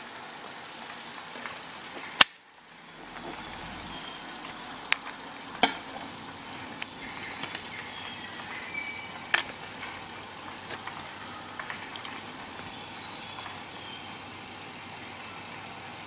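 A hazelnut shell cracking between the jaws of a multi-tool's pliers: one sharp, loud crack about two seconds in, then several lighter clicks and taps of metal and shell as the tool and nut are handled.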